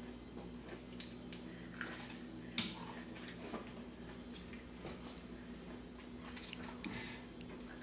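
Soft clicks and rustles of Oreo cookie packets and a plate being handled on a kitchen countertop, a few at a time, over a steady low hum.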